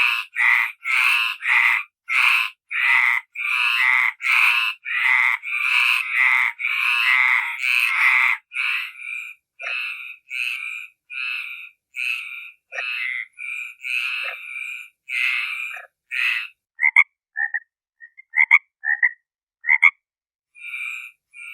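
Frog croaking in a quick regular series, about two calls a second. About eight seconds in the calls become shorter and more widely spaced, and near the end they turn into brief sharp chirps with short gaps between them.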